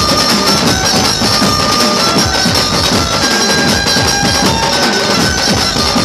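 Live band music: large barrel drums beaten in a fast, dense rhythm, with a reedy melody of held notes played over them.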